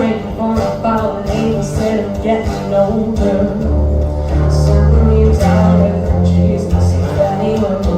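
Live performance of an original song, led by guitar, with long held low notes underneath.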